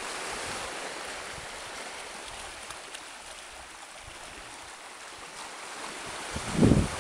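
Small waves washing and lapping among boulders and sand at the water's edge, a steady hiss. Near the end a brief gust of wind rumbles on the microphone.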